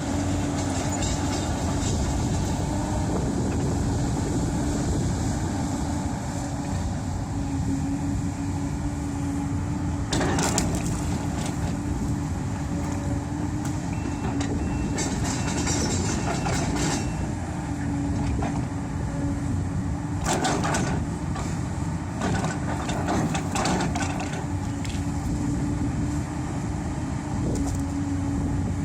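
Caterpillar 320D excavator's diesel engine running steadily with a constant hum. Several short bursts of knocking and rattling come over it, about a third of the way in, around the middle, and twice more later.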